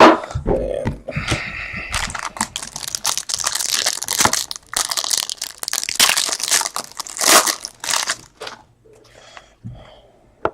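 A sharp knock, then several seconds of crinkling and tearing as plastic trading-card pack wrappers are ripped open and handled. The crinkling thins out near the end.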